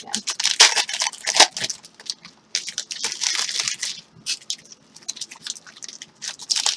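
A stack of glossy Panini Prizm Draft Picks football cards being flipped through by hand: a run of dry, scratchy rustles and clicks as cards slide against one another, with a longer scrape of card on card about two and a half seconds in.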